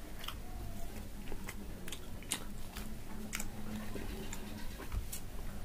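Close-miked chewing and mouth sounds of a person eating, with scattered short wet clicks and smacks, a few a second.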